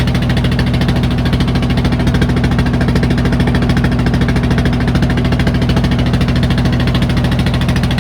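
Small boat engine running steadily at a constant speed, a low, even drone with a fast, regular pulse.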